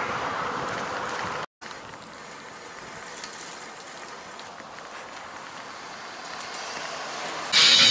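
Steady rush of passing highway traffic and wind on the microphone while riding a bicycle, breaking off abruptly about a second and a half in, then a quieter outdoor riding noise. Guitar music starts loudly just before the end.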